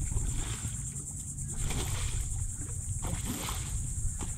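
Water sloshing and splashing around a kayak in repeated short surges, about one a second, over a low wind rumble on the microphone and a steady high hiss.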